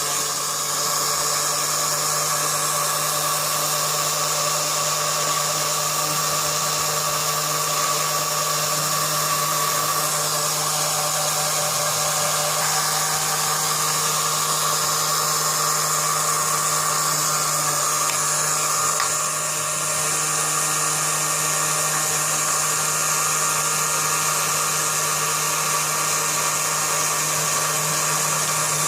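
The motor and gearbox of a cordless drill, repurposed as a mini lathe, running at a steady speed with an even, multi-tone whine as it drills out a small lock pin.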